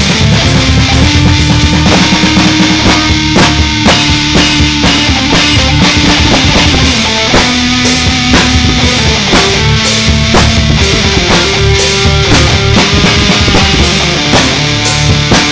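Loud heavy rock music: a band playing drum kit, bass and guitar.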